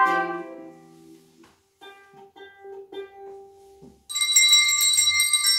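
A held trumpet chord fades away, a few soft plucked acoustic guitar and ukulele notes follow, then about four seconds in tuned handbells start ringing with bright, high tones.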